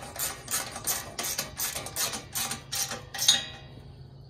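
A 9/16 ratcheting wrench clicking about four times a second as it is swung back and forth, tightening the bolts of a roof drain down onto its metal mounting plate. The clicking stops about three and a half seconds in.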